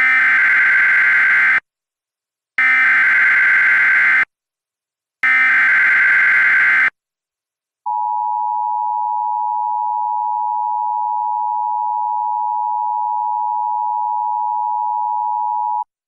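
Emergency Alert System tones: three bursts of SAME digital header data, each about a second and a half long with a second's gap between, encoding a severe thunderstorm warning. About eight seconds in, the steady EAS attention tone follows and holds for about eight seconds.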